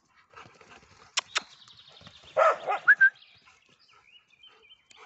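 A dog whining and yelping in short high cries around the middle, after two sharp clicks about a second in.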